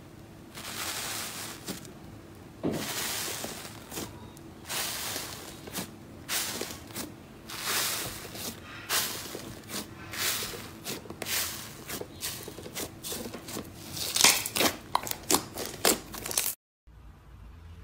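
Hands pressing and kneading bubbly foam slime: repeated soft squishing presses full of small crackles as air bubbles in the slime pop. A denser run of sharp crackles comes near the end.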